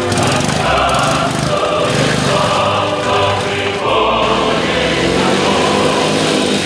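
Choir singing as a music track, with many held, stacked voices.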